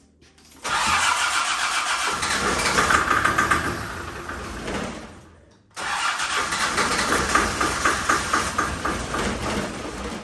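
Land Rover Defender's TD5 five-cylinder diesel cranked over on the starter motor in two long bursts of about five seconds each, with a short pause between, turning over rhythmically without firing. It does not start because no fuel is getting through to it.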